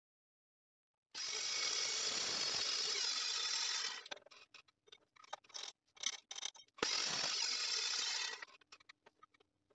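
Metal chop saw cutting through rectangular steel tube twice, a loud even grinding noise each time, the first cut about three seconds long and the second shorter. Between the cuts come quick metallic clicks and knocks as the tube pieces and the saw's vise are handled.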